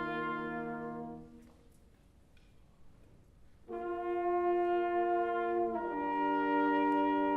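Concert band playing slow, sustained brass chords. A held chord fades away about a second and a half in, there is a pause of about two seconds, then a loud new chord enters and moves to another chord about two seconds later.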